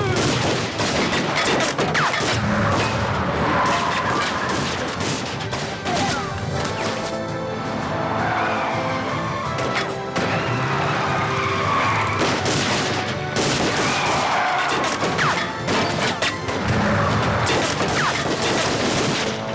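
Bursts of gunfire and crashing impacts, coming in clusters, over dramatic background music.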